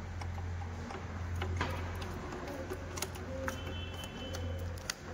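Scattered sharp clicks and knocks of the Alto 800's plastic air filter housing and a screwdriver as the housing is worked loose from the engine, over a steady low hum.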